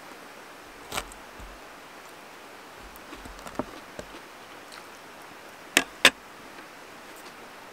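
Metal knife and fork clinking against a ceramic plate while an omelette is cut. There is a sharp clink about a second in, a few light taps in the middle, and two sharp clinks close together about six seconds in, over a faint steady hiss.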